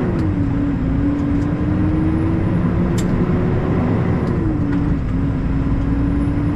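International LoneStar semi truck's diesel engine pulling under way, heard from inside the cab over steady road rumble; its pitch climbs slowly and drops quickly twice as the transmission shifts up. A single sharp click about three seconds in.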